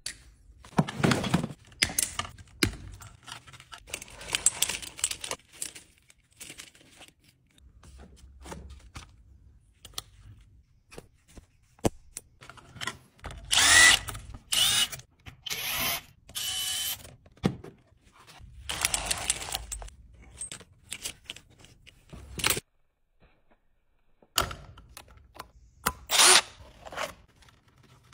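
Cordless Milwaukee Fuel brushless drill running in several short bursts, spinning a wire stripping and twisting bit to strip and twist electrical wires. Hand tools clatter in a tool bag before the first burst.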